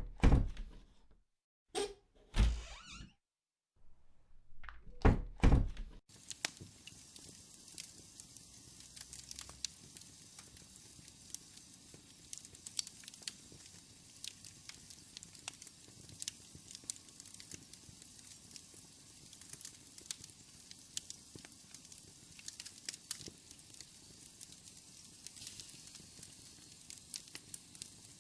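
Several heavy thuds or knocks in the first six seconds, then, after an abrupt cut, a faint steady crackle dotted with scattered sharp clicks and pops.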